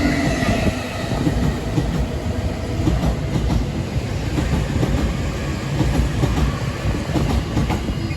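Train running along the platform track, its steady rumble broken by the clickety-clack of wheels passing over rail joints.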